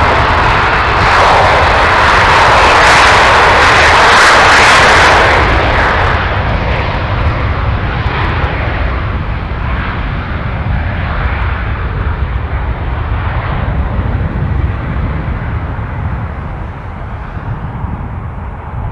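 Twin Rolls-Royce BR710 turbofans of a Bombardier Global 6000 business jet at takeoff power on the takeoff roll: a loud, hissing jet roar as it accelerates past, dropping after about five seconds and then fading gradually over a steady low rumble as the jet moves away and lifts off.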